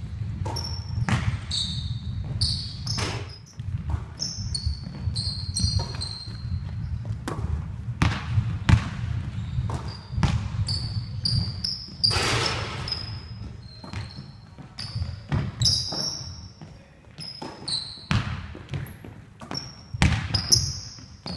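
A basketball bouncing on a hardwood sports-hall floor, struck again and again at an uneven pace. Many short, high sneaker squeaks on the court come between the bounces.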